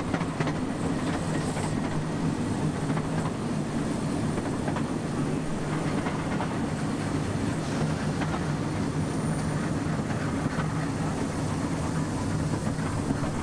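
Carriages of a 15-inch-gauge miniature railway rolling steadily along the track, heard from on board an open carriage: a constant rolling noise of wheels on rails with a light clickety-clack over the rail joints.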